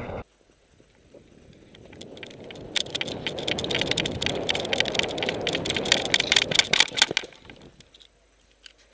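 A player moving on foot with airsoft gear: rustling and a rapid, irregular clatter of equipment rattling and clicking. It builds from about a second in and stops abruptly after about seven seconds.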